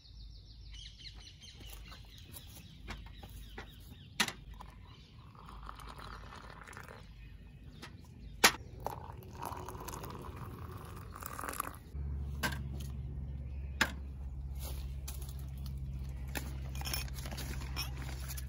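Coffee being stirred with a spoon in a tin-can mug, with a few sharp clinks of the spoon against the metal over an outdoor background.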